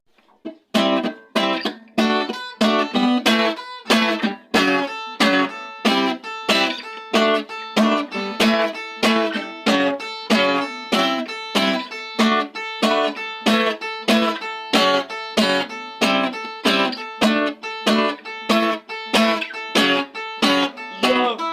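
Acoustic guitar strumming chords in a steady, even rhythm, with no singing.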